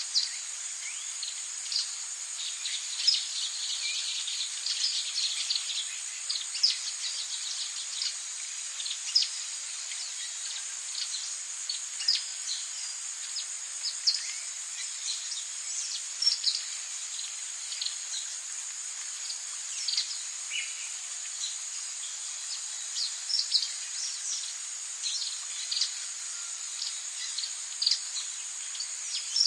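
Tropical forest ambience: a steady, high-pitched insect drone with many short, sharp bird chirps scattered irregularly over it.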